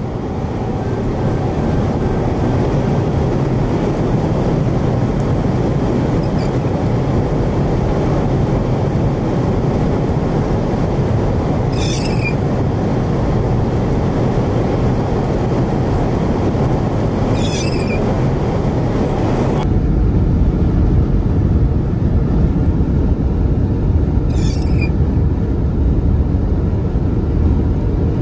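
Strong wind buffeting the microphone, a steady low rushing rumble that changes character abruptly about two-thirds of the way through. Three brief high chirps, each falling in pitch, come at intervals above it.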